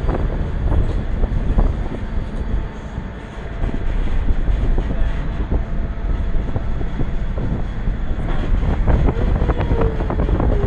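Wind buffeting the microphone high up in the open air, a loud, fluctuating low rumble, with a few scattered clicks near the end.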